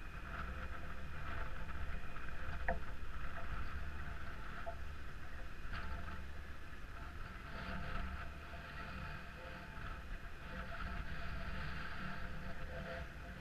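Wind buffeting a GoPro fixed to a steel beam hanging from a crane: a steady low rumble with hiss, and one sharp click a little under three seconds in.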